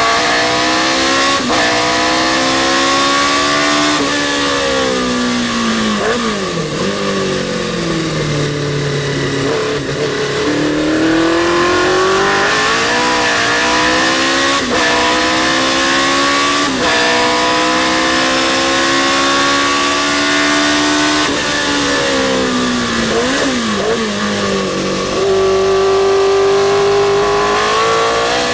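Historic racing sports car engine at full throttle. It climbs in pitch through the gears with sharp drops at each upshift, then falls away twice with quick throttle blips as it downshifts to brake for corners, and pulls hard again near the end.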